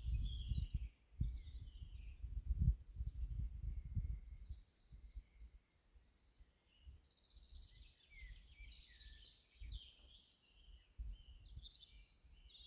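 Songbirds singing: a string of high chirps and trills, with a run of about six evenly repeated notes in the middle. A low rumble sits beneath, strongest in the first few seconds.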